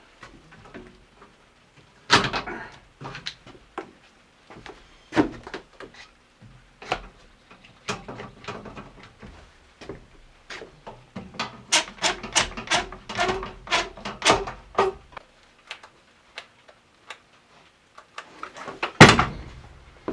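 Boards and tools being handled on a wooden work surface: irregular knocks and clatter, with a quick run of taps in the middle and one loud thump near the end.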